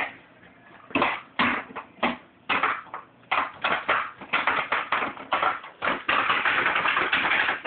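Toddlers slapping and banging on a plastic toy piano: a quick, irregular run of knocks, then a longer stretch of continuous noise near the end.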